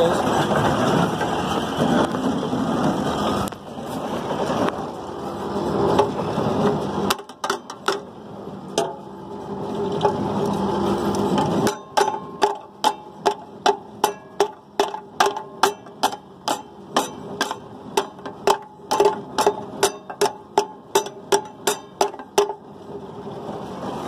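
Hay baling machinery running steadily, then, about halfway through, a rapid regular metallic clicking of about two to three clicks a second.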